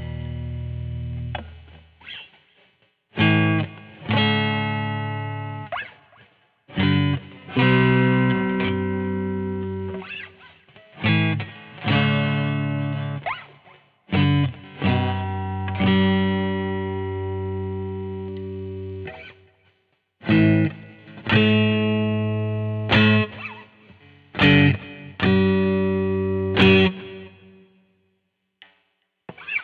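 Electric guitar, a 1994 Mexican-made Fender Stratocaster fitted with GFS Jimi reverse pickups, played through an amp. Chords and single notes are struck one after another, some cut short and some left to ring and fade for several seconds.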